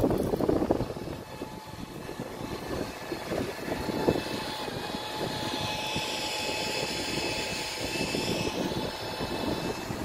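Wind buffeting the microphone in gusts, then a steady droning noise that swells through the middle and eases off near the end.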